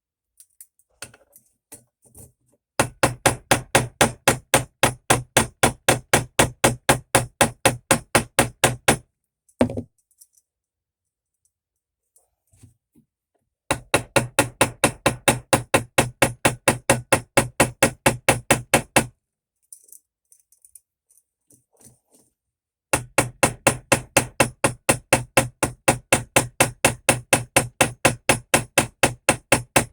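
Small hammer rapidly tapping, about five strikes a second, peening the pins of a knife with its blades fitted. The strikes come in three runs of several seconds each, with short pauses between.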